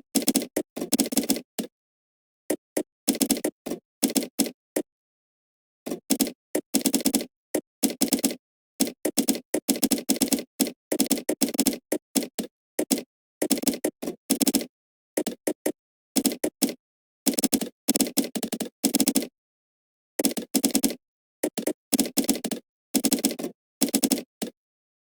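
Typing on a computer keyboard, in quick bursts of keystrokes separated by short pauses of up to about a second.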